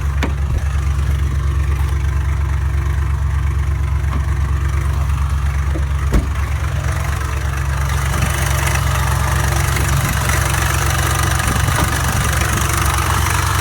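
2003 Dodge Ram 1500 engine idling just after a cold start in deep frost, with a fast steady ticking that the owner suspects comes from the fan. A single sharp click comes about six seconds in, and a hiss grows louder about eight seconds in.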